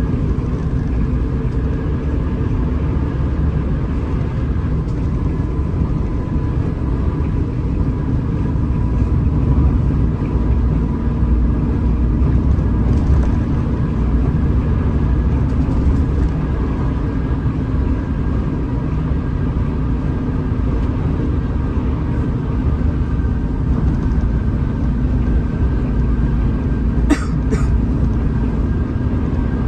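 Hino RM 280 bus running at a steady cruise: a constant low engine and road rumble with a faint steady whine above it. There is a brief click near the end.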